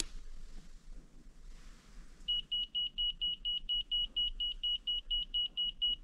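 KKMOON electromagnetic field meter's alarm beeper starting about two seconds in, with rapid high-pitched beeps at about six a second. It is the meter's warning for a high magnetic-field reading.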